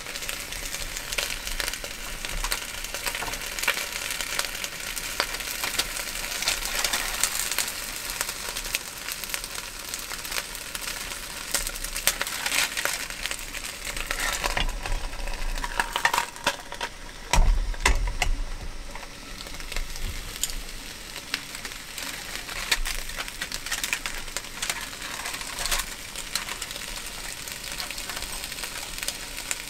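A fish fillet frying on aluminium foil in an open hot sandwich maker over a gas cartridge burner: a steady sizzle full of small crackles, with the chopsticks handling it now and then. A louder bump comes a little past halfway.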